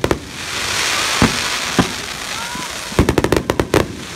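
Fireworks going off: a steady crackling hiss of glittering star bursts, with single sharp bangs about a second in and just before two seconds, then a rapid string of about ten pops around three seconds in.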